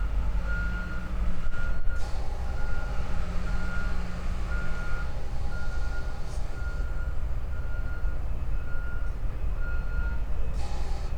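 Vehicle reversing alarm beeping steadily, about one beep every 0.7 seconds, over a low engine rumble; the beeping stops about ten seconds in.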